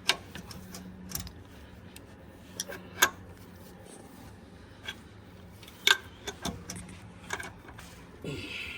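Scattered sharp metallic clicks and knocks of tools and parts being handled while a motor mount is fitted, the loudest about three seconds in and again near six seconds, over a faint steady low hum.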